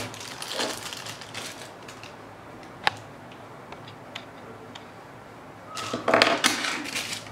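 Clear plastic packaging bag crinkling as a small plastic hot-shoe stand is unwrapped and handled. A single sharp click comes about three seconds in, with a few faint ticks after it, and the plastic rustles louder again near the end.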